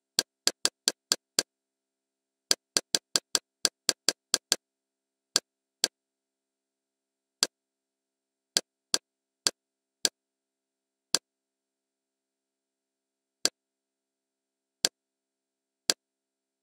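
Kodi menu navigation clicks: short, sharp ticks as the menus are scrolled, in quick runs of about four or five a second at first, then spaced a second or more apart, with silence between.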